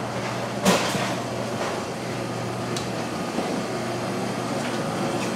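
Steady mechanical hum of commercial kitchen refrigeration equipment, with one sharp clatter less than a second in and a few faint knocks after it.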